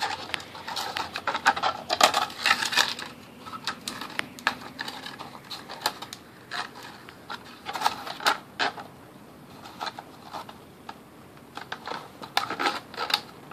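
Plastic string-trimmer spool turned by hand as nylon trimmer line is wound onto it: irregular light clicks and rattles, busiest near the start, about two-thirds of the way through and near the end.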